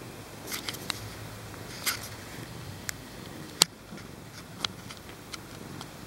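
Newborn kittens nursing at their mother cat: small wet suckling clicks and smacks at irregular moments, the sharpest about three and a half seconds in, over a faint low steady purr.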